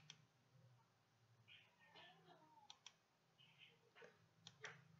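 Near silence with a few faint computer mouse clicks, two of them close together near the end.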